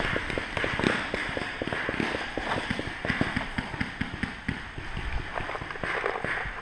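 Running footsteps crunching over dry fallen leaves and dirt, several steps a second, thinning out about halfway through as the runner slows.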